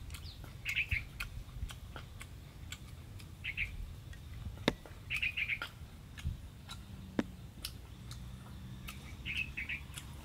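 A bird calling in short, quick chirping phrases, four times, over a low steady rumble, with scattered sharp clicks.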